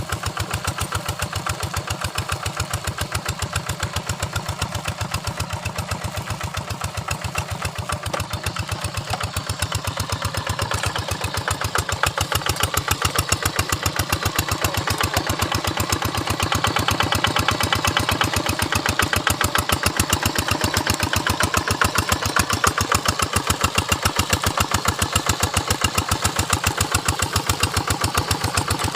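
Quick Impala hand tractor's engine running with a rapid, even chugging beat, growing louder from about 12 seconds in.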